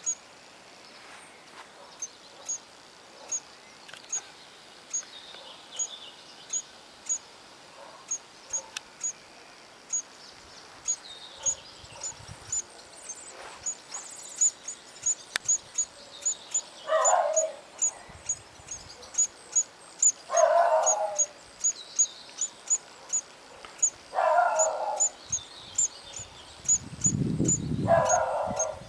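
High, thin chirps repeated at an even rate, speeding up from about one and a half to about three a second, typical of Eurasian hoopoe nestlings begging at the nest hole. In the second half, four louder noisy bursts about a second long come every three to four seconds, and there is a low rumble near the end.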